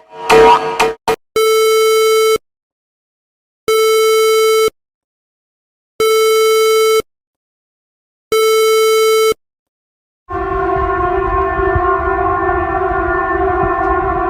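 Emergency alert alarm tones: after a second of quick plucked electronic notes, four one-second beeps of a single buzzy tone sound about two and a half seconds apart, then a continuous harsh chord of several steady tones starts about ten seconds in.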